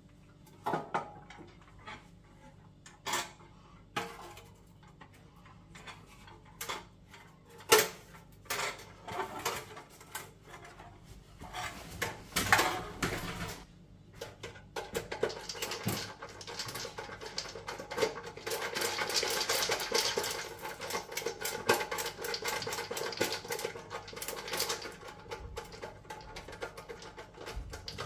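Scattered clicks and knocks of metal boiler parts being handled. From about halfway, a dense run of rapid clicking and scratching as a screwdriver works inside the sheet-metal housing of a boiler fan.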